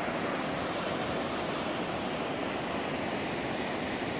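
Steady rushing and churning of river water pouring through the spillway gates of a dam and breaking into white-water rapids below.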